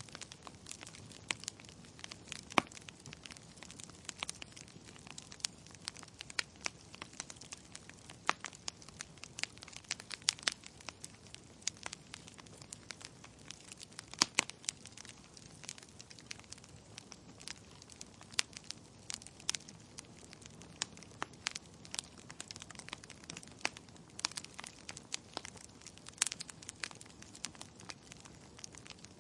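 Wood fire crackling in a fireplace: frequent irregular sharp pops and snaps over a soft steady hiss, with a few louder pops about two and a half seconds in and again near fourteen seconds.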